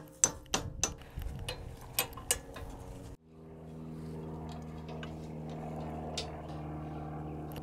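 Light metal clicks and taps as a pivot pin is worked into the steel lift-arm linkage of a mini-loader. About three seconds in, these give way to a steady low machine hum with several even tones.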